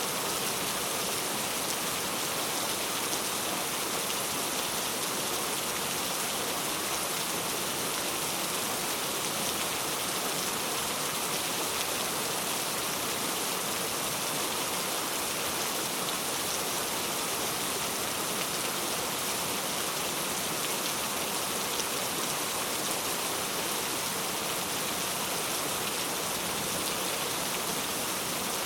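Steady rain falling and pattering on surfaces, an even hiss that holds without change.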